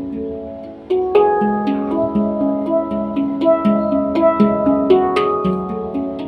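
Handpan being played: struck notes ringing on over one another, a few soft notes at first, then about a second in a louder, busier run of notes, several per second.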